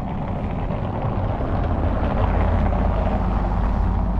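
A car driving past on a cobblestone road: a steady tyre and engine rumble that swells a little as it goes by.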